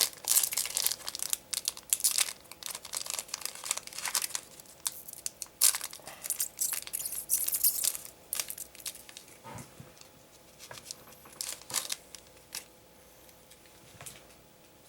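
A trading-card booster pack wrapper being torn open and crinkled: dense crackling for the first eight seconds or so, thinning to a few scattered crackles after that.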